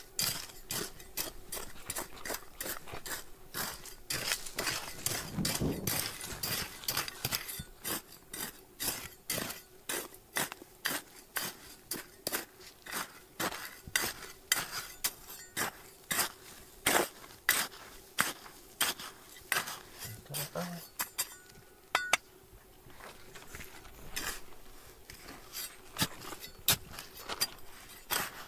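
Repeated sharp clinks of a metal hand tool striking stones, two to three a second, with a short lull about 21 seconds in.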